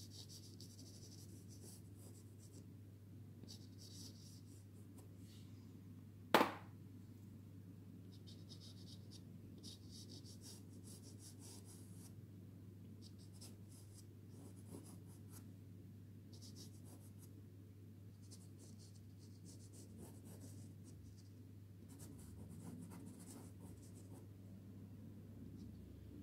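Soft pastel stick scratching across pastel card in short bursts of strokes, with one sharp click about six seconds in and a low steady hum underneath.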